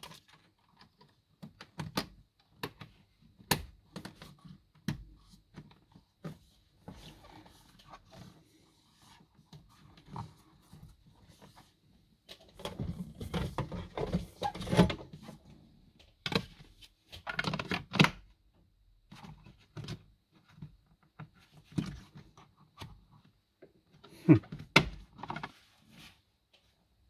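Hands handling a panel-mounted autopilot control head: scattered plastic clicks and knocks, with a busier stretch of rubbing and fumbling about halfway through and a couple of louder knocks near the end.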